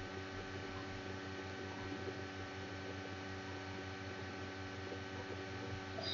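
Steady electrical mains hum with its overtones under faint hiss, unchanging throughout.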